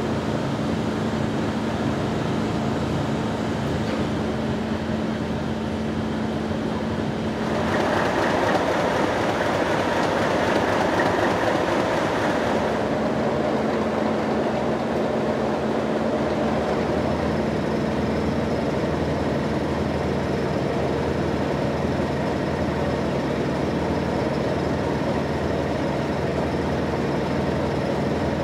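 Class 37 diesel locomotive's English Electric V12 engine running steadily, heard in and around the cab. About eight seconds in, a louder, hissier stretch lasts roughly five seconds before the steady engine sound returns.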